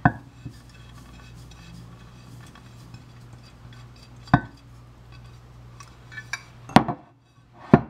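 Several sharp clinks and knocks of a glass jar and small ceramic bowls being handled on a countertop, the loudest near the end, over a low steady hum.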